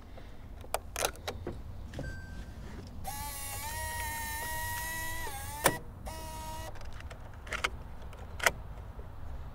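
Canon camcorder being worked by hand: a few switch and button clicks, then its small internal motor whirring with a slightly rising whine for about two and a half seconds, cut off by a sharp click. A shorter whir follows, then two more clicks.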